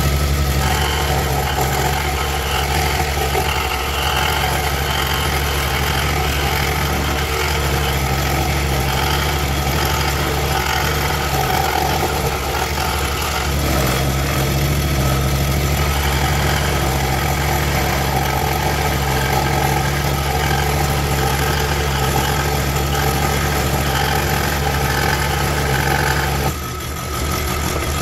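Woodstar SD 16 scroll saw running steadily, its blade cutting through a wooden blank. About 26 seconds in, the sound briefly drops and changes.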